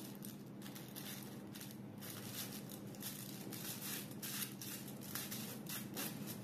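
Aluminium highlight foil crinkling and rustling in the hands in short, irregular strokes as a foil packet is folded over a section of hair, over a faint steady hum.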